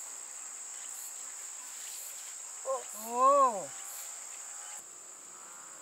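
Steady high-pitched chirring of insects, with a brief rising-and-falling call from a person's voice about three seconds in.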